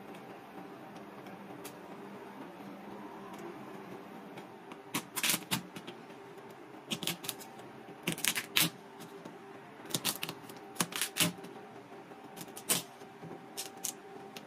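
A kitchen knife cracking and splitting cooked crab leg shells on a plastic cutting board: sharp, irregular clicks and snaps in short clusters, starting about five seconds in, over a faint steady hum.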